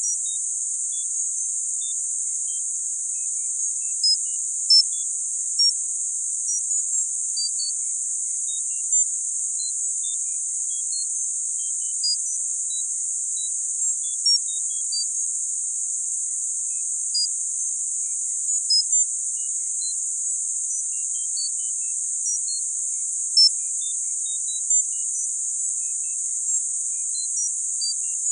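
Tinnitus-masking sound therapy audio: a steady, high, thin hiss, with short high pings of varying pitch dotted at irregular moments, roughly one a second.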